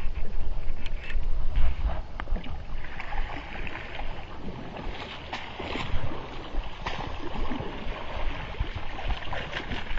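Splashing and rustling as a hooked largemouth bass is dragged through shallow water and wet grass onto the bank, with many irregular crackles and clicks. A low rumble on the microphone is strongest in the first two seconds.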